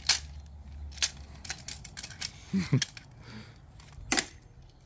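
Blunted steel dagger jabbing the perforated steel visor of a cheap plate helmet: a series of sharp metallic clinks, about a second apart.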